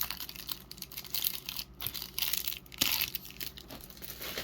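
Packaging being torn open and crinkled by hand, with irregular rustling and a few louder tears about two and three seconds in, as the card pack is unwrapped.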